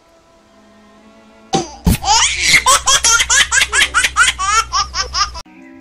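Cartoon bulldog's voice: a loud, rapid string of vocal bursts, about five a second, for nearly four seconds, starting about a second and a half in. Faint background music plays beneath.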